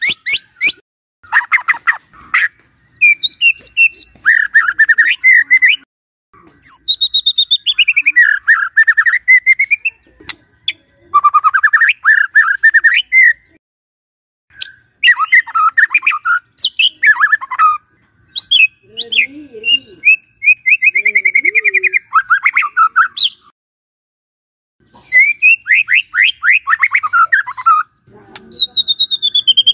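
White-rumped shama (murai batu) singing: loud phrases of fast repeated notes and trills, some sweeping down in pitch, broken by short pauses.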